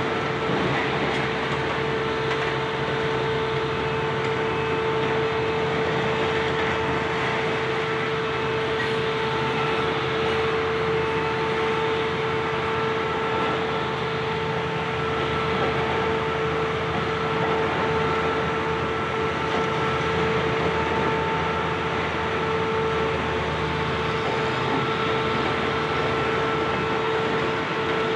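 High-reach demolition excavator running steadily, a constant whine at one pitch over its engine noise as the attachment works through concrete slabs and corrugated metal decking.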